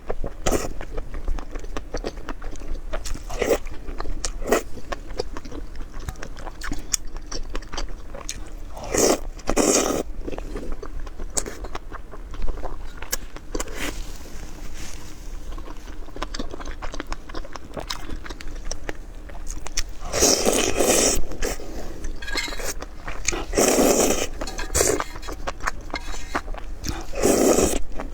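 A person chewing and biting food close to the microphone: a steady run of small crunches and mouth clicks. Louder, longer crunching comes about a third of the way in and three more times near the end.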